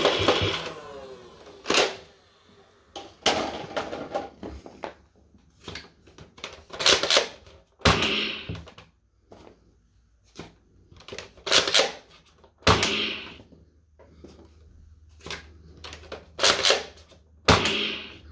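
Nerf M41-A pulse rifle blaster being reloaded after a magazine dump: a string of separate sharp plastic clicks and knocks, about a second or more apart, as the empty magazine comes out and a fresh one goes in. The rapid firing of the last burst trails off just at the start.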